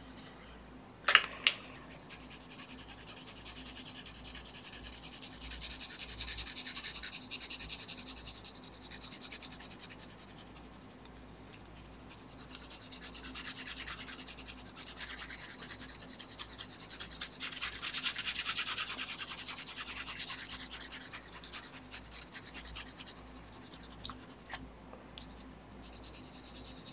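Colored pencil scratching and rubbing across the paper of a comic sketch cover in stretches of shading strokes, with a sharp tap about a second in.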